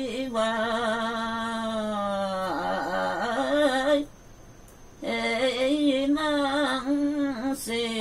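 A woman singing a Limbu Tam:awke (Tamke) song unaccompanied, holding long notes with wavering, trilling ornaments. She stops for about a second about halfway through, then goes on singing.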